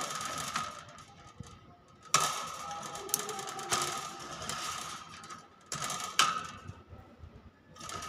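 Bursts of scratchy rubbing with sharp clicks as a hill myna's feathers and beak brush against the microphone at close range, over a faint steady tone.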